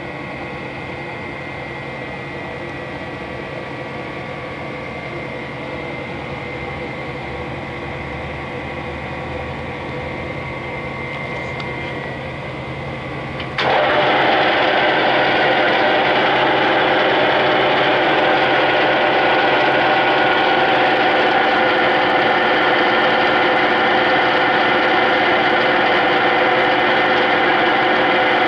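Clausing Colchester 8031 engine lathe running, a steady gear drone and whine. About halfway through, the sound jumps suddenly louder and stays there, with more high gear whine.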